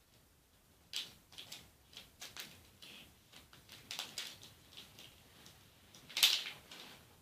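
Plastic packaging of a Kinder Joy egg crinkling and clicking as it is handled and pulled open by hand. The sound comes in short, faint bursts, with a louder crinkle about six seconds in.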